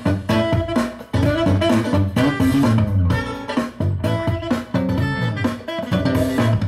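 Guitar-led music with a heavy bass line and drums, played back through a speaker cabinet during an amplifier sound check.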